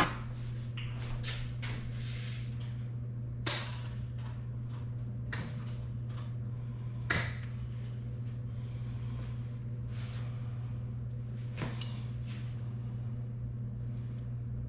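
Scattered clicks and scrapes of tools and parts being handled, the two loudest about three and a half and seven seconds in, over a steady low hum.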